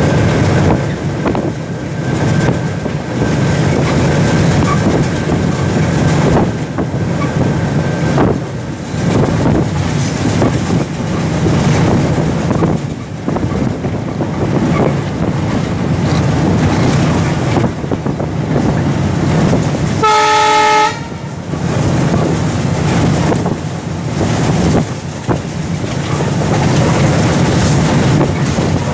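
Sri Lanka Railways Class M10 diesel locomotive running along the line, its steady running noise mixed with scattered clicks of the wheels over the track. About two-thirds of the way through, the horn gives one short blast.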